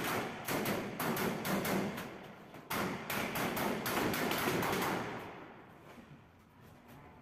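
Rapid repeated knocks against a metal-framed stucco-sheet toilet partition panel, struck at its base with a hand tool, several a second, dying away about five seconds in.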